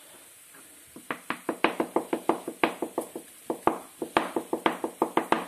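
Kitchen knife chopping boiled potato on a plastic cutting board: a fast, even run of sharp knocks, about six a second, starting about a second in.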